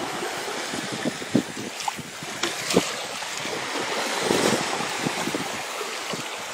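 Shallow sea water washing and splashing at the shoreline, with wind buffeting the microphone; it swells a little midway through.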